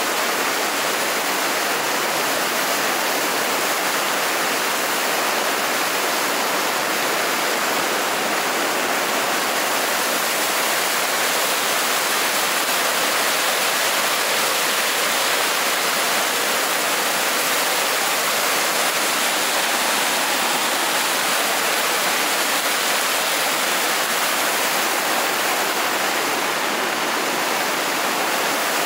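Muddy floodwater of a river in spate rushing over a flooded road and through foaming rapids, a steady loud rushing that does not change.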